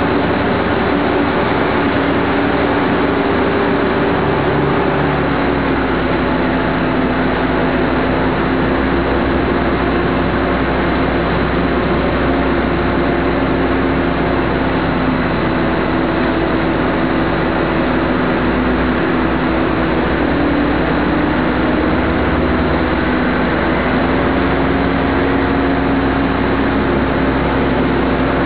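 Dennis Condor double-decker bus engine running steadily under way, heard inside the lower-deck cabin; its note shifts about five seconds in.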